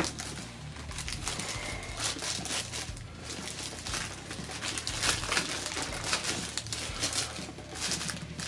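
Clear plastic wrapping crinkling and rustling in quick, irregular crackles as it is pulled off a cardboard box.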